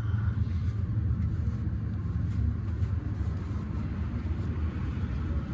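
Steady low rumble of vehicle noise, unbroken and even in level.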